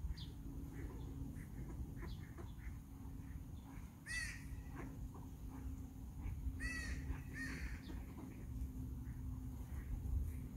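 Bird calls from a flock of ducks and nearby birds: scattered short calls throughout, with a loud call about four seconds in and two more around seven seconds. A low steady hum runs underneath.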